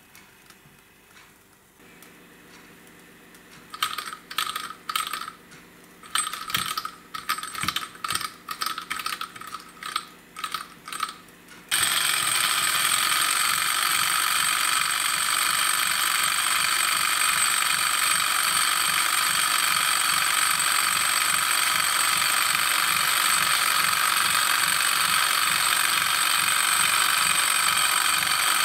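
Irregular sharp metallic clicks and ticks for several seconds. Then, about twelve seconds in, a small two-cylinder hot-air Stirling engine starts a loud, steady, fast mechanical clatter as it runs.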